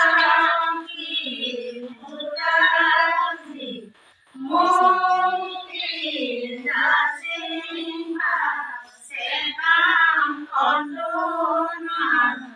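Women devotees (gopinis) singing Ai naam, an unaccompanied devotional chant for the Ai Sakam rite, in long held phrases of a couple of seconds with short breaks between them.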